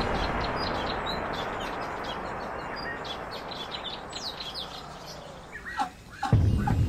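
Ducklings peeping: many short, high chirps throughout, with a few louder calls just before the end. Background music fades out at the start and comes back in loudly near the end.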